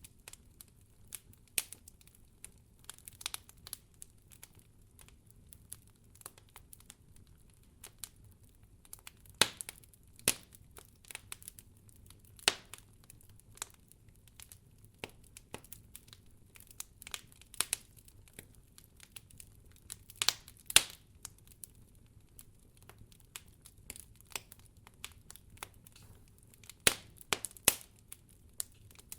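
Fireplace fire crackling: irregular sharp pops and snaps, some much louder than others, over a faint steady low rumble.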